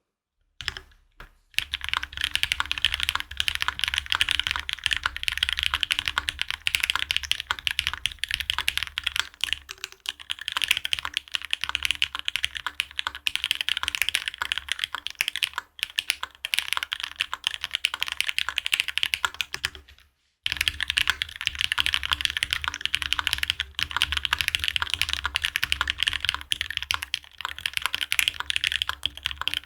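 Fast continuous typing on an E6.5 mechanical keyboard with an aluminium plate, GMK DMG doubleshot ABS keycaps and Cherry MX Hyperglide Red linear switches lubed with 3204. A few single keystrokes open it, then dense, rapid runs of clicks follow, with a brief pause about twenty seconds in.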